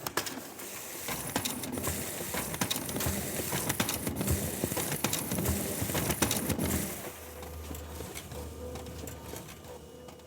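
Xerox multifunction printer at work: a dense clattering of quick clicks and paper-handling noise for about seven seconds, then a quieter steady hum that fades away.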